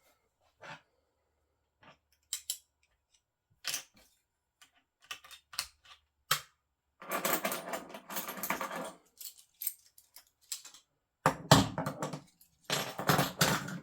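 Handling noise from small hard parts: scattered clicks and knocks, then two spells of dense rattling clatter, about seven and eleven seconds in.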